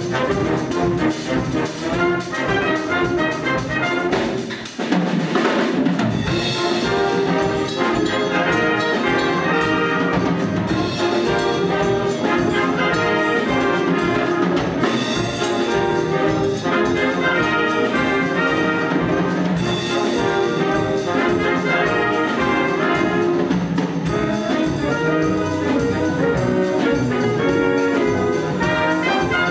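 Concert wind band playing: clarinets, saxophones, brass and drum kit together. The low instruments drop out briefly about five seconds in, then the full band comes back in with a steady beat.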